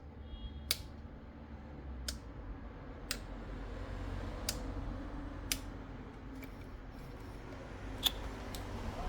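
About seven sharp clicks at irregular intervals as the electric nail drill's switch is worked, over a faint low hum; the drill's motor does not start, as the drill is not working.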